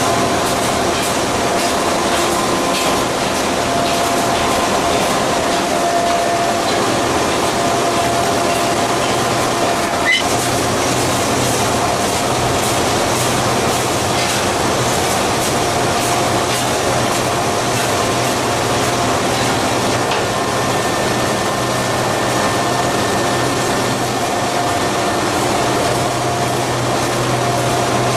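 Steady running noise of the machinery of a copper rod continuous casting and rolling line, with a constant low hum and a few held tones. One sharp click about ten seconds in.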